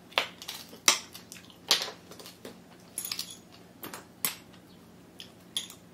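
Close-up eating sounds: chewing steamed bullet squid, with irregular sharp clicks and taps of metal chopsticks picking at the platter and dipping into a small sauce bowl.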